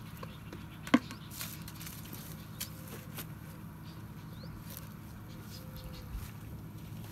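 A few short plastic clicks and knocks from a bait bucket being handled, its lid lifted and a hand rummaging inside; the sharpest click comes about a second in.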